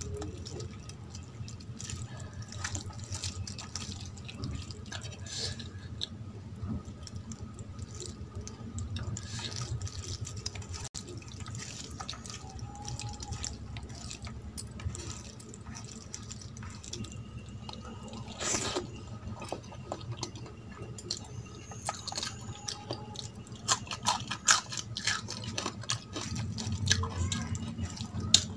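Fingers mixing and squeezing cooked rice with curry gravy on a steel plate: wet squishing with many small irregular clicks and taps, one louder click past the middle and several more near the end.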